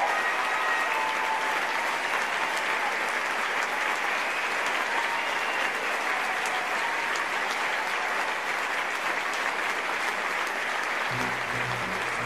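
Theatre audience applauding steadily. Low music comes in near the end.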